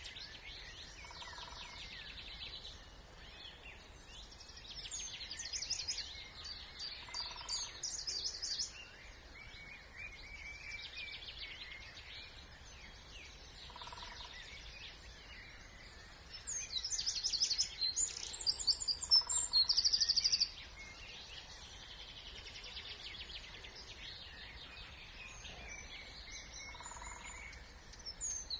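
Several songbirds singing over one another, with the loudest song, a fast varied phrase of about four seconds, a little past halfway. A faint steady low background noise sits underneath.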